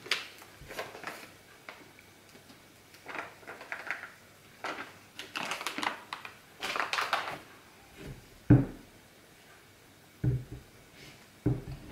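A paper packet rustling in short bursts as cornstarch is shaken out of it over a ceramic bowl, then three dull knocks of a metal spoon and bowl as the melted gummy-bear slime is stirred.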